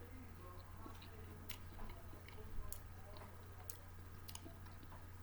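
A person chewing snack food close to the microphone, with scattered sharp crunchy clicks.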